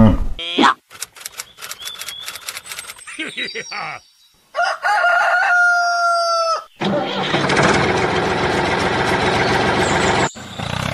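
A rooster crowing in one call of about two seconds, a sound effect laid over a toy rooster. A few seconds of short clicks and chirps come before it. An engine starts just after the crow and runs steadily for about three and a half seconds.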